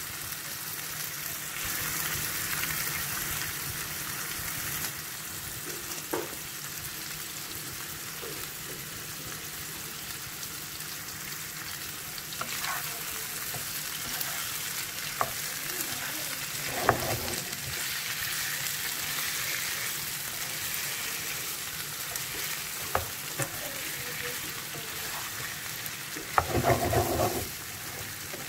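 Boiled chicken pieces frying with onion, garlic and ginger in a frying pan: a steady sizzle, with a wooden spatula stirring and now and then knocking on the pan, the loudest knocks near the end.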